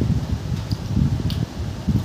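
Moving air buffeting the microphone: a low, uneven rumble, with a couple of faint clicks partway through.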